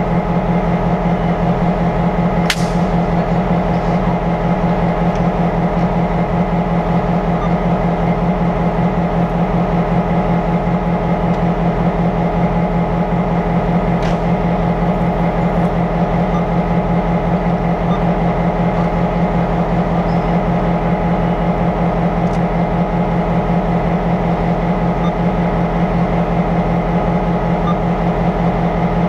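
EMD F-unit diesel locomotives idling steadily, their two-stroke 567 V16 engines giving an even, unchanging drone, with a couple of sharp clicks.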